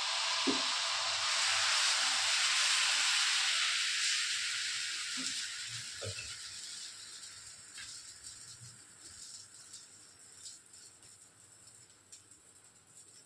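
Dosa batter sizzling on a hot iron tawa: a loud hiss that starts suddenly as the batter hits the pan and fades slowly over several seconds as it sets. A few light utensil knocks.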